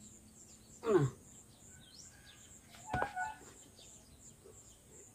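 Small birds chirping faintly in the background. About a second in a man gives a short, falling grunt of effort, and near three seconds there is a single sharp click.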